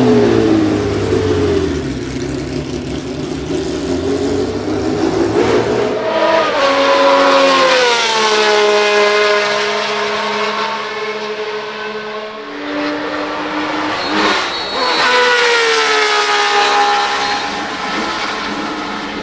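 Ferrari 312 B2's 3.0-litre naturally aspirated flat-12 racing engine pulling away at low revs, then accelerating hard with the revs climbing and dropping back at several gear changes.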